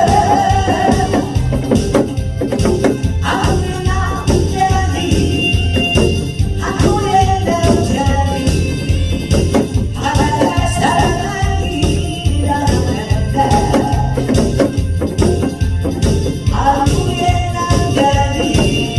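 A song sung over a karaoke backing track with a steady beat, with a tambourine jingling along.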